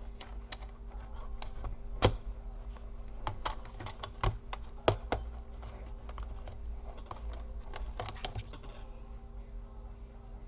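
Irregular plastic clicks and taps of laptop parts being handled and pressed into place during reassembly, with a few sharper snaps about two and five seconds in.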